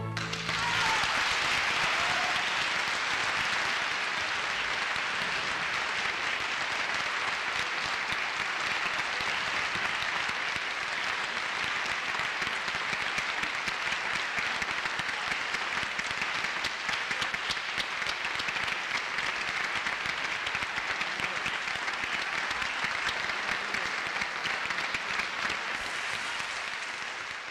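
Concert audience applauding: dense, steady applause that breaks out as the orchestra's final chord stops and keeps going at an even level.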